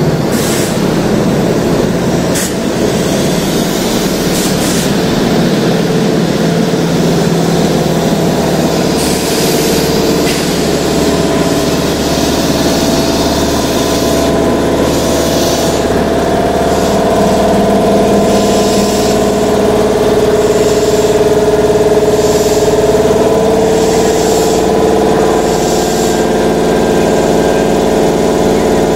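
Keihan electric train standing at the platform, its underfloor equipment running with a steady hum. About nine seconds in there is a short hiss of air. From about fourteen seconds a steadier droning tone builds, with a faint regular pulse about once a second, as the train's air compressor runs.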